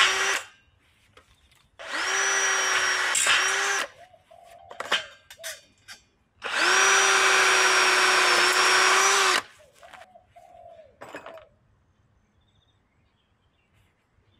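Electric drill running in three bursts, the last and longest about three seconds, each spinning up quickly to a steady whine and stopping abruptly, with light tool clatter between runs.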